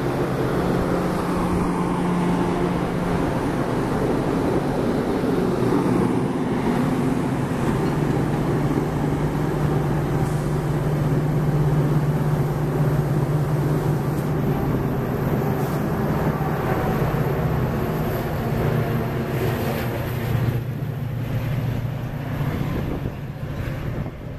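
Metra bilevel passenger train rolling past: a steady rumble and clatter of steel wheels on the rails, with a low steady drone underneath. The sound eases off a little in the last few seconds.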